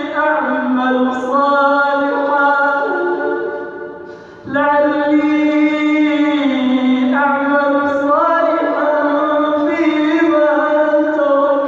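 A male reciter chanting the Quran in a melodic tajweed style, holding long ornamented notes. He pauses for breath about four seconds in, then resumes the next phrase.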